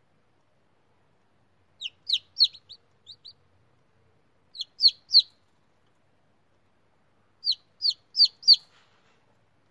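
Newly hatched chicken chicks peeping: short, high peeps that fall in pitch, in three bursts of three to six peeps.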